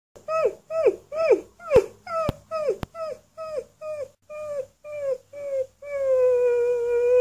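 Alaskan malamute puppy howling: a quick string of about a dozen short yips, each dropping in pitch, then one long steady howl near the end.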